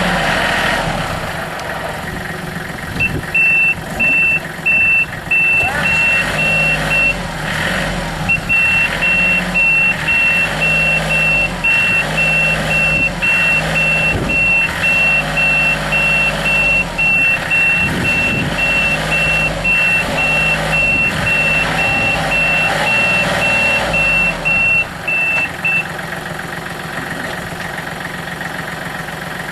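Kubota L35 compact tractor loader backhoe's diesel engine running while its backup alarm beeps in an even, repeated pattern as the machine reverses; the beeping starts a few seconds in, pauses briefly, and stops near the end.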